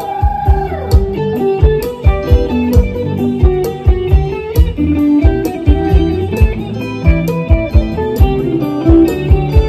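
Band music with an electric guitar carrying the melody over a steady drum beat, starting at once at full volume.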